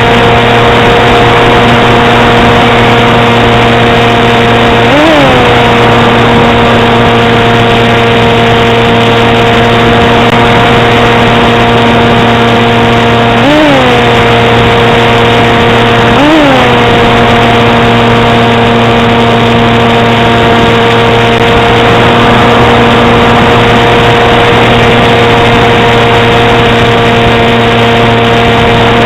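Small motor and propeller of an FPV model aircraft running at a steady pitch over loud hiss. Its pitch jumps up briefly and settles back three times, about five seconds in and twice more past the middle.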